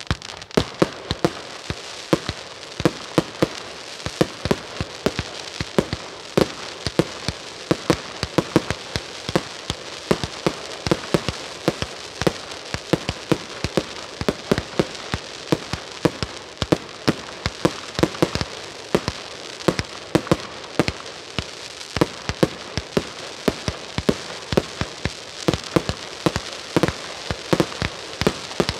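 A 150-shot 1.3g consumer firework cake firing shot after shot, several sharp bangs a second without a pause, over a steady crackling hiss.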